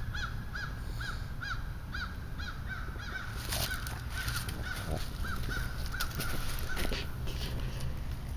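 Frogs calling from a pond during spring mating, a steady run of short clucking notes about two or three a second that stops near the end. Low wind rumble runs underneath, with a few scattered clicks.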